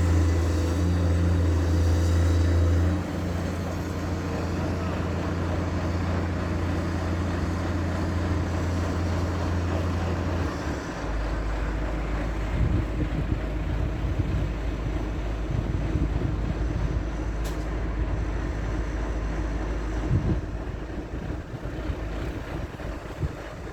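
Heavy diesel construction machinery running, a steady low engine hum that drops in level about three seconds in and settles to a lower note around halfway, with scattered clunks in the second half.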